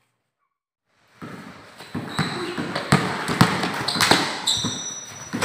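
Silence for about the first second, then a basketball bouncing again and again on a concrete court as a player dribbles, with children's voices and footsteps.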